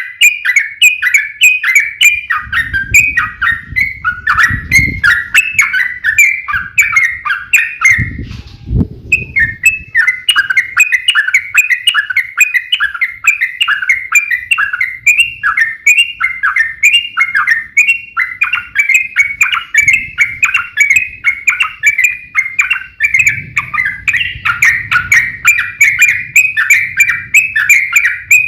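Yellow-vented bulbul (trucuk) giving a long, rapid chattering song of sharp, repeated notes, the fast "ropel" fighting song used to provoke other bulbuls into singing. It breaks off briefly partway through, and a low rumbling noise runs under the song in places.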